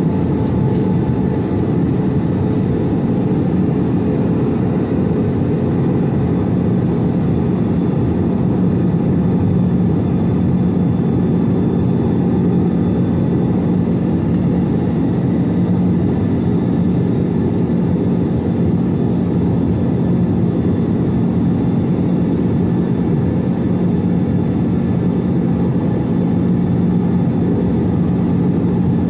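Steady, unchanging drone of an Airbus A321-211 airliner's CFM56 jet engines and airflow, heard from inside the cabin, with a constant low hum.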